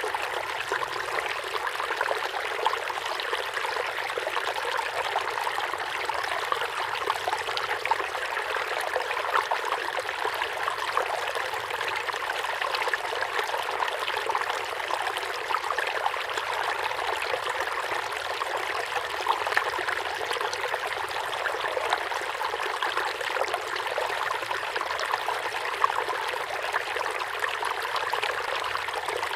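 River water running steadily, an even rushing with fine trickling and splashing, unbroken throughout.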